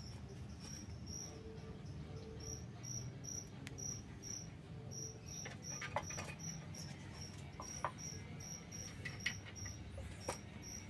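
A cricket chirping steadily, a short high chirp repeated evenly a couple of times a second. From about six seconds in, a few brief light knocks as the kittens scuffle on the wooden stool.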